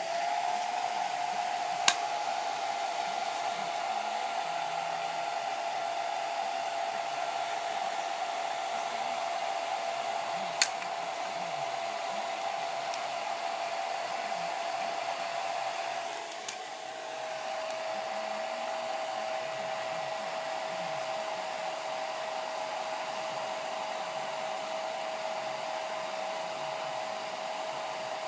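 Hand-held hair dryer switched on and running steadily, a rushing blow with a steady whine; the whine steps slightly lower about two-thirds of the way through. Two short sharp clicks come over it.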